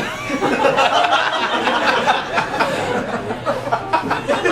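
Audience laughing, breaking out suddenly after a quiet pause and going on as a dense mix of many voices.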